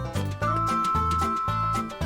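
Upbeat background music with a steady beat, a bouncing bass line and held melody notes.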